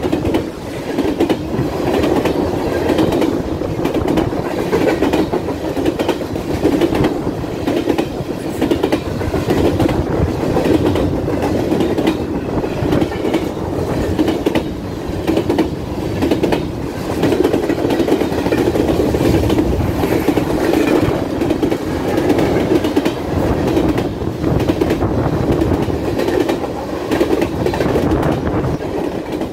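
Norfolk Southern freight train rolling steadily past, its cars' wheels clicking over the rail joints in a continuous clickety-clack over a loud rumble.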